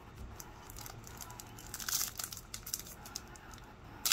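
Foil wrapper of a 2002 Pacific Adrenaline hockey card pack crinkling as it is handled, with a brief louder rustle about two seconds in, then being torn open at the very end.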